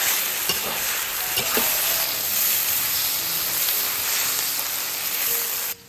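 Stir-fried stew sizzling in a wok as pork, chillies, tomatoes, konjac tofu and aubergine cook in the seasoning, with a few knocks; the sizzling cuts off suddenly near the end.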